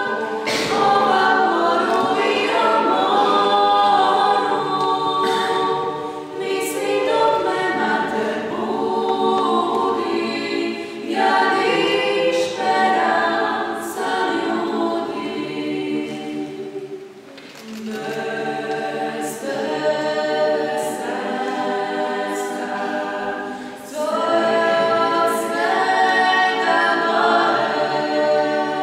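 A choir singing a cappella in several-part harmony, in sustained phrases with short breaths between them and a longer break about two-thirds of the way through.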